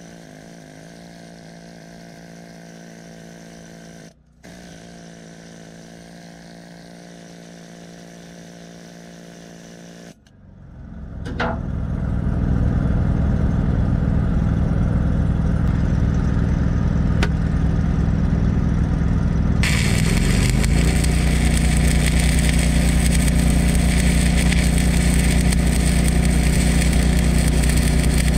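An engine-driven welding machine running steadily at low idle, then speeding up to full weld speed about ten seconds in. About ten seconds later a stick-welding arc strikes and crackles steadily over the engine as a 1/8-inch rod is run along the axle weld, throwing off a lot of spatter, which the welder puts down to the amperage being a little high.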